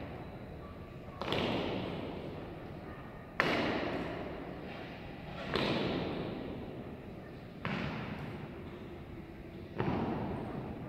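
Honor guards' slow-march boot strikes on a hard floor, five heavy thuds about two seconds apart. Each one echoes and dies away in a large hall.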